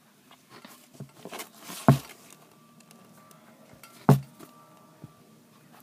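Two sharp knocks about two seconds apart, with faint small clicks and rustling between them.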